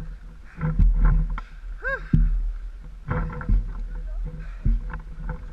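Footsteps and gear rubbing from a player on the move over a pine-needle forest floor, heard through a head-mounted camera as a run of uneven low thuds and knocks with a few sharp clicks. A short pitched sound rises and falls about two seconds in.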